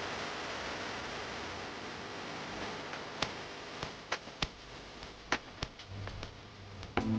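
A steady noisy hiss that fades after about three seconds, followed by scattered sharp ticks; music begins right at the end.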